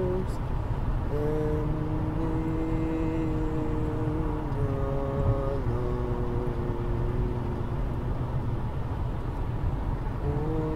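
Steady low road rumble of a car interior while driving, under a few held musical notes that step down in pitch twice and fade out before the end.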